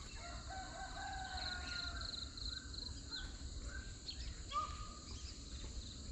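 Outdoor rural ambience: birds calling on and off, with one louder call about four and a half seconds in, over a faint, regular, rapid chirping of insects.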